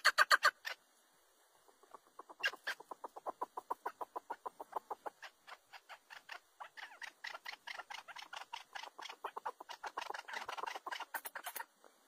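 Chukar partridge calling: rapid runs of short notes, about six a second. A loud run ends about half a second in; after a gap of about a second a new run starts, builds up, and goes on until just before the end.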